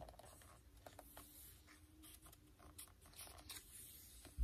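Near silence with faint rustling and ticks of a hardcover picture book being held and handled, and a short dull bump near the end.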